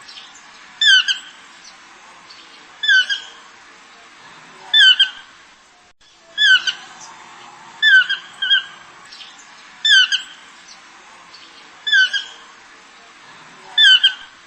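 An animal's short squawking call repeated about every two seconds, eight times, some calls doubled, over a steady background hiss.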